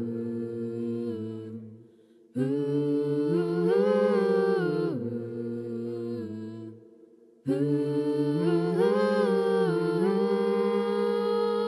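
Music: held chords of wordless voices singing in harmony, in three phrases. The second and third start abruptly, about two seconds in and again past seven seconds, and each swells and then dies away.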